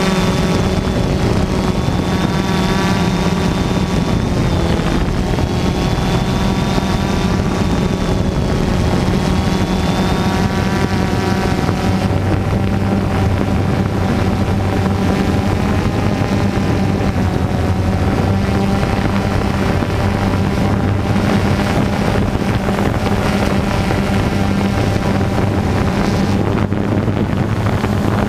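DJI Phantom 2 quadcopter's four brushless motors and propellers whining steadily in flight, picked up by the camera mounted on the drone, with wind buffeting the microphone. The whine holds several tones that shift slightly in pitch, and a thin high tone fades out about ten seconds in.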